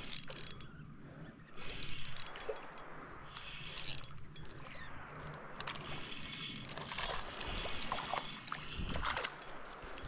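Scattered clicks, taps and rustling from handling fishing tackle and a freshly caught smallmouth bass, with a few louder rustles about two, four and nine seconds in.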